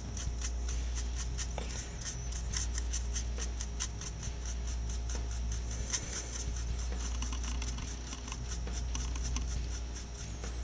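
Paintbrush bristles scratching and dabbing on a plastic model car body in quick, irregular strokes, with the brush being worked dry against the surface, over a steady low hum.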